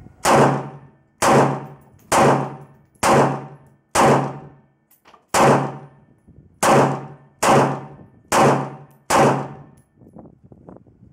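Norinco Type 97 bullpup rifle firing ten shots, about one a second with a slightly longer gap midway, each sharp crack trailing off in an echo. It cycles every round without a stoppage, its feed ramp grooved to cure its jamming.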